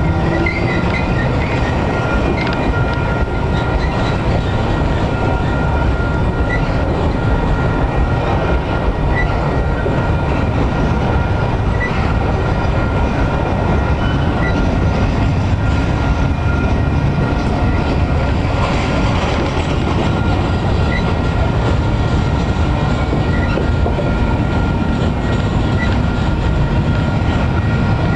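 A double-stack container train's well cars rolling past close by: a steady rumble and clatter of steel wheels on the rails. A faint steady high-pitched tone runs above it.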